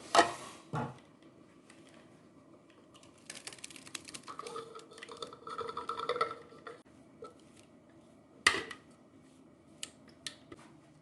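Kitchen dishes and utensils being handled: two sharp knocks at the start, a few seconds of clattering and rubbing in the middle, then another sharp knock and a few light clicks near the end.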